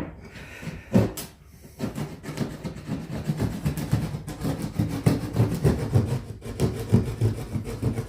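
Wood being worked by hand: a sharp knock about a second in, then steady rapid scraping or rubbing on wood.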